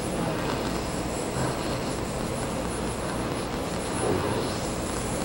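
AM band static hissing steadily from a General Electric Monogram series radio's speaker as the tuning knob is turned between stations.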